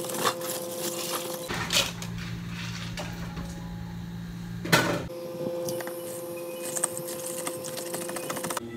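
Iced chocolate drinks being made in plastic cups: ice rattling and clinking as a straw stirs, milk poured from a carton, with short knocks of cups and cartons on the counter, the loudest a little before the midpoint. A steady appliance hum runs underneath and changes pitch at each cut.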